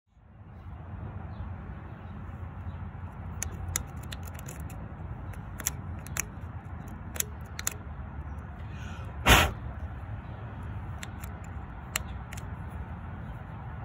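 Flat-blade screwdriver working the plastic latch of the electrical connector on a rusty rear wheel hub: a series of light clicks and ticks, with one much louder clack a little past halfway, over a steady low background rumble.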